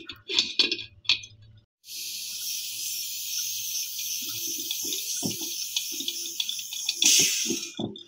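A small refrigeration vacuum pump hums steadily over light metal clicks, then stops about one and a half seconds in. A steady hiss of air rushing into the evacuated line follows as the charging hose is loosened from the compressor's service pin valve, with knocks of the brass fitting being handled.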